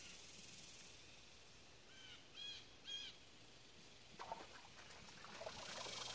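A bird gives three short calls in quick succession, followed by a few faint clicks and rustles. Near the end a high cicada buzz swells up.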